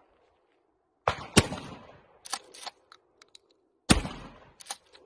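Two pump-action shotgun shots, about a second in and about four seconds in, each followed by short sharp clacks as the pump is worked to eject the spent shell and chamber the next.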